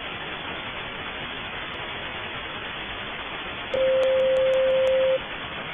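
Steady static hiss, with a single steady beep tone lasting about a second and a half near the end.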